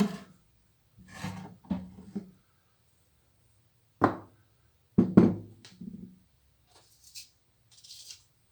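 Rubbing and scraping of things handled on a workbench, with two sharp knocks about four and five seconds in.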